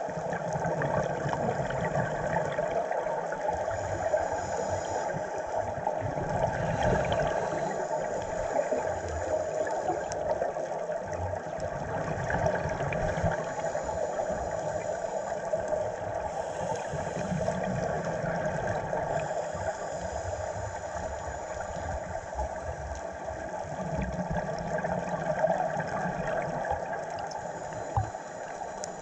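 Underwater sound on a scuba dive, picked up by a camera in its housing: a steady muffled wash with low bubbling rumbles that swell and fade several times, from divers' regulator exhaust bubbles.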